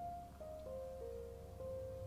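Quiet background music: a melody of held single notes that changes about every half second.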